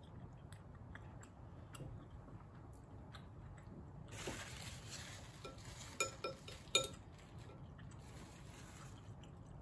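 Quiet eating sounds, a rustle about four seconds in, then metal chopsticks clinking sharply against a ceramic bowl three times.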